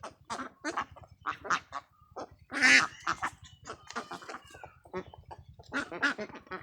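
A flock of Khaki Campbell ducks quacking: many short, overlapping calls, with one louder, longer call a little under three seconds in.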